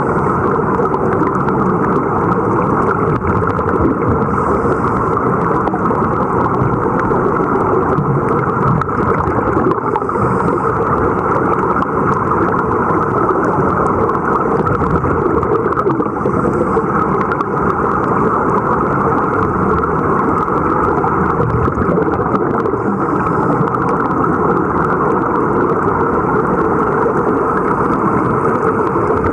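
Steady, muffled underwater noise: a dense rumble and hiss with no separate events.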